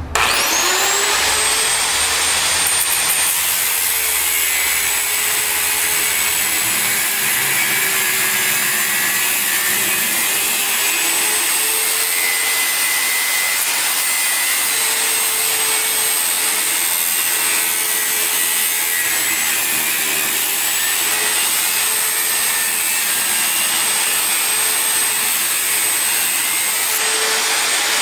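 Electric angle grinder with a thin cut-off disc spinning up, then cutting a groove into a steel deep-well socket held in a vise. It makes a steady high whine whose pitch wavers slightly as the disc bites.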